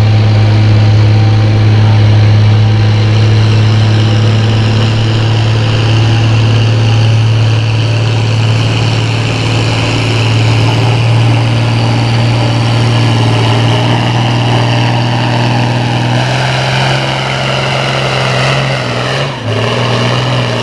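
Farm tractor's engine running hard under heavy load as it drags a pulling sled, its note holding steady and loud. Near the end the note shifts and briefly dips as the pull winds down.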